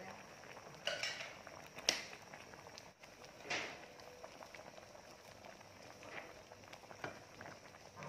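A metal spoon and ladle clinking and scraping against the pan as a simmering gravy is stirred: a handful of separate knocks, the sharpest about two seconds in, over a faint steady bubbling.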